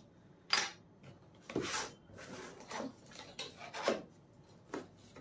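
Cardboard camera box being opened and its packing handled: a string of short scrapes, rubs and knocks, the sharpest about half a second in.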